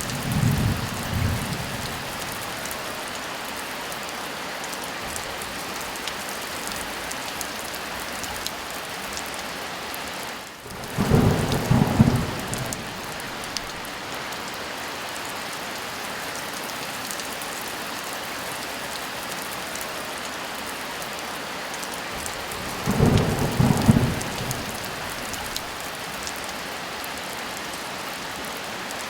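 Steady heavy rain with brief low rumbles of thunder: one dying away at the start, another about a third of the way in, and a third near the three-quarter mark.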